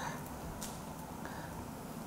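Quiet room tone with faint spoon sounds: a light click of a spoon against a metal pot about half a second in, while cooked black beans are scooped out.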